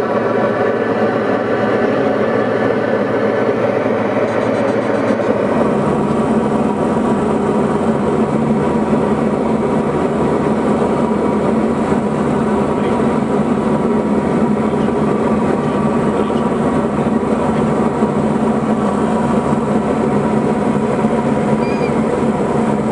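Diamond DA40 single-engine light aircraft's engine and propeller running steadily, heard from inside the cabin during a landing approach to a grass airstrip. The engine's sound shifts about five seconds in, the low part getting stronger.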